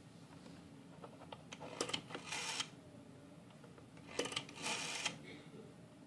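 Rotary telephone dial turned and released twice. Each time a few clicks are followed by a short whirr as the finger wheel spins back, sending its pulses, here for the digits 1 and then 2.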